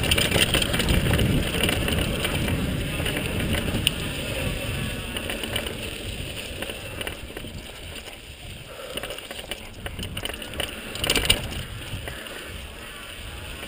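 Wind buffeting the camera microphone and mountain bike tyres rolling over a dirt trail on a descent, loudest in the first few seconds and easing off after. A sharp clatter about eleven seconds in.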